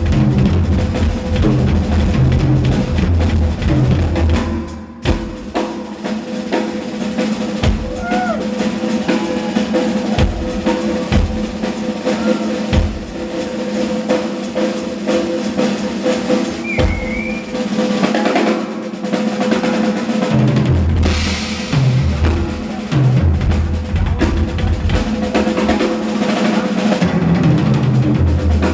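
Drum kit played fast and continuously in a solo, with snare rolls, rimshots and bass drum kicks, over a steady held tone.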